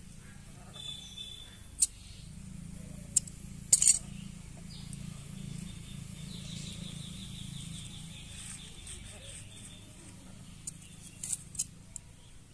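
Sharp clicks and clinks of small metal tools being handled: a few from about two to four seconds in, and two more near the end as a pair of scissors is picked up.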